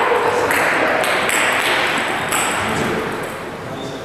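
Table tennis rally: the celluloid/plastic ball clicking sharply off the bats and bouncing on the table, about one to two hits a second over a steady hiss of hall noise. The hits stop near the end as the rally finishes.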